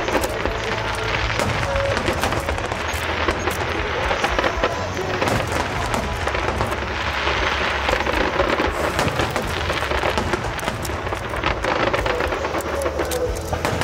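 Aerial fireworks crackling and popping in a dense, unbroken barrage of sharp cracks with no pauses.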